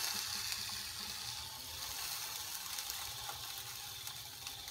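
Steady sizzling and simmering hiss from butter and boiling water in a hot 15¼-inch Lodge cast-iron fry pan.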